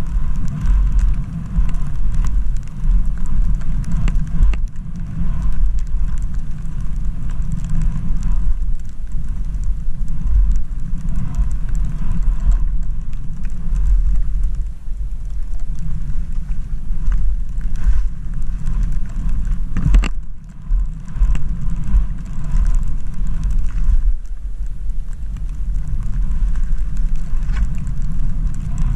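Skis running through deep powder snow, heard as a continuous low rumble of wind buffeting the camera microphone with a fainter hiss of snow over it. There is one sharp knock about two-thirds of the way through.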